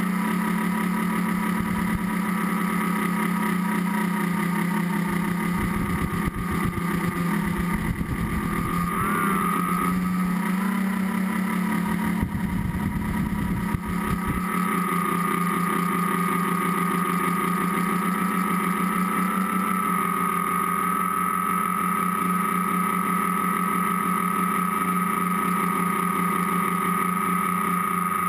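Tricopter's electric motors and propellers whining steadily, heard from the camera on board, the pitch wavering a little as the throttle changes. A low wind rumble on the microphone comes in from about six to fourteen seconds in.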